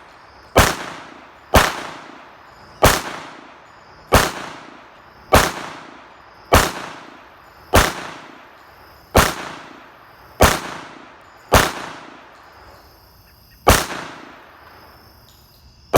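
Glock 21 .45 ACP pistol fired in slow single shots, about one a second: about a dozen sharp cracks, each trailing off in echo, with a longer pause before the last two.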